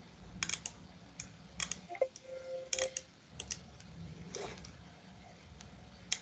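Faint, irregular clicking of keys being typed on a computer keyboard, with a brief faint tone about two seconds in.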